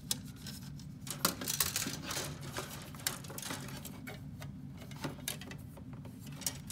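Plastic model-kit sprues being handled and shuffled in a cardboard box: scattered light clicks and rattles of plastic knocking on plastic, busiest in the second and third seconds.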